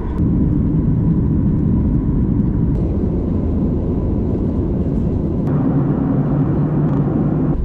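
Steady rumble of a moving vehicle, with a brighter hiss joining it about five and a half seconds in.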